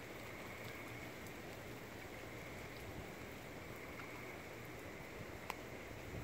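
Steady rain falling, a constant even hiss with a faint high steady tone behind it. One sharp click about five and a half seconds in.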